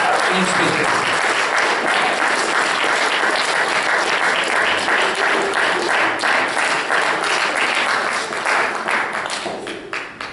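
Audience applauding, steady at first and dying away near the end.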